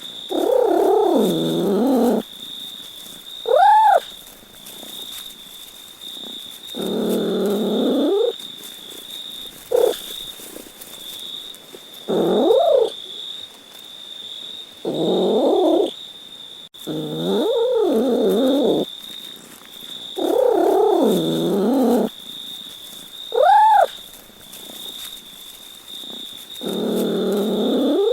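A cat meowing in drawn-out calls of one to two seconds each, repeated every few seconds, with two short chirp-like calls that rise and fall. A faint steady high whine runs underneath.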